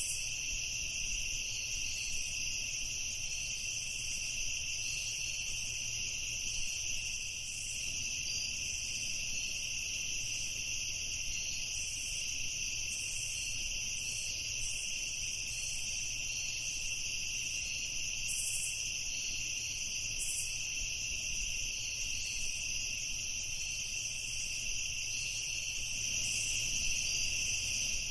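Night insects in a steady, unbroken chorus: several layers of high-pitched chirring at different pitches, one of them pulsing.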